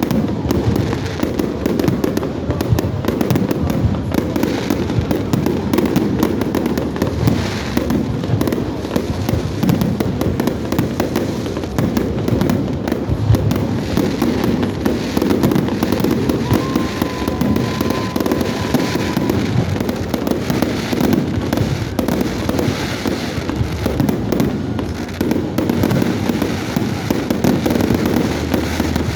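Large fireworks display: shells bursting and crackling in dense, continuous succession, the bangs overlapping with no pause. A thin whistling tone sounds for a couple of seconds just past the middle.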